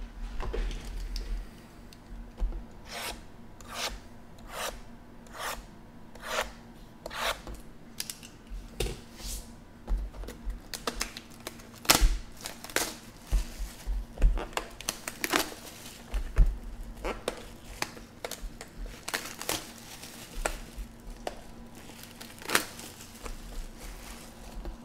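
2017 Topps Chrome Baseball foil card packs and cardboard hobby boxes being handled: a run of sharp crinkles, rustles and taps, loudest about twelve seconds in.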